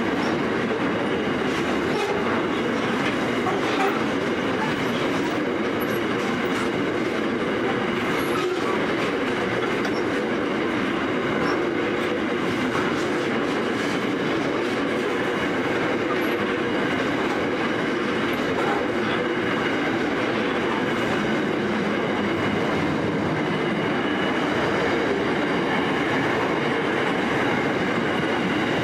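Container flat wagons of a long freight train rolling past: a steady noise of steel wheels on the rails that holds at the same level throughout.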